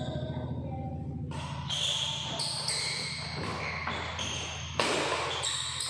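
Badminton doubles rally on a wooden court: rackets strike the shuttlecock sharply about a second in and again near the end, while shoes squeak in short high squeals on the floor. A steady low hum runs underneath, and the hall is echoey.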